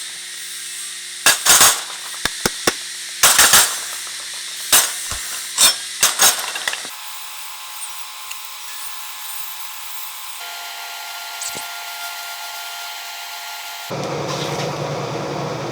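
Hand tool work in a shop: about a dozen short, irregular rasping strokes over the first seven seconds. Then a steady hum with faint held tones, which changes twice and grows louder and lower near the end.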